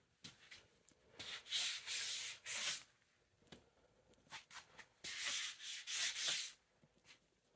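Footsteps scuffing over a dust-covered basement floor, in two short runs of about three steps each: one starting about a second in, another about five seconds in.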